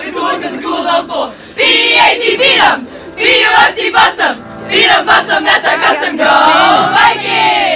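A group of voices cheering and yelling together, loud and high-pitched, with music beneath in places.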